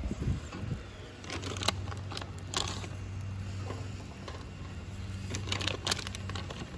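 Scattered light clicks and taps as raw shrimp are set one by one on a charcoal grill's wire grate, over a low steady hum.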